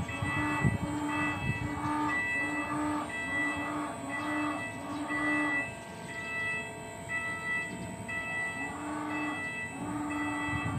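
Warning signal of a trash rack cleaning machine: an electronic alarm sounding short tones of several pitches, repeating roughly every half second, over a low mechanical noise.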